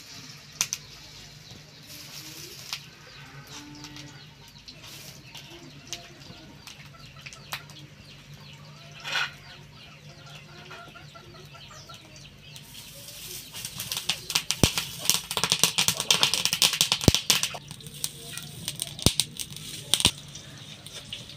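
Batter-coated taro strips frying in hot oil in a karahi: a light crackle at first, turning into a loud, dense sizzle full of sharp pops about two-thirds of the way through.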